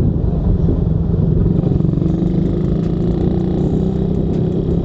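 Suzuki Raider motorcycle engine running at a steady, unhurried pace while being ridden, with road and wind rumble underneath. From about halfway, scattered light clicks are heard over the engine.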